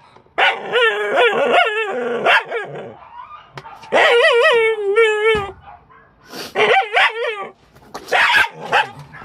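A dog in a wire-doored pet carrier giving repeated high, wavering whining cries in four bouts, with short gaps between them.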